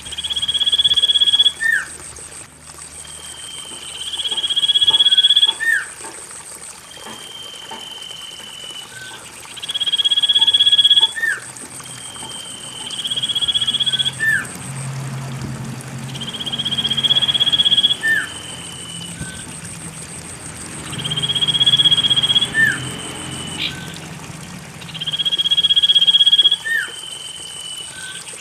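Recorded common iora (cipoh) calls repeating about every four seconds. Each is a long high whistle that swells in loudness, with a lower note ending in a quick upward flick. It is played as a lure to coax a caged bird that has stopped singing. A thin steady high tone and faint background noise run underneath.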